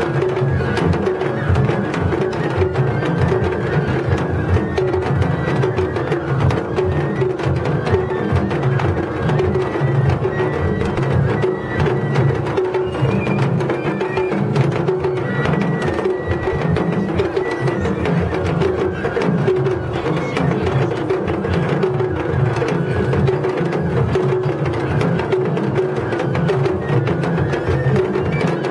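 Japanese festival float music (matsuri bayashi): taiko drums on the floats beaten continuously in a dense rhythm, with a high melody line coming and going over them.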